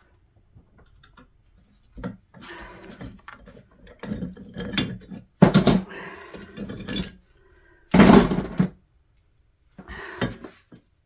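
Metal hand tools clanking and scraping on the potter's wheel's metal parts in several separate bursts, as a stuck part is worked at without coming free.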